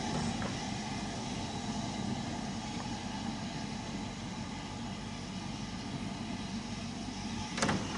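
LMS Stanier Class 5 4-6-0 steam locomotive moving slowly away in the distance, a steady low rumble. A single sharp knock sounds near the end.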